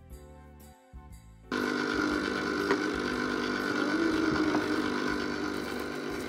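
Soft music for the first second and a half, then suddenly an electric ice cream maker's motor running steadily with a constant hum and whine as it churns eggnog ice cream mixture in its frozen bowl.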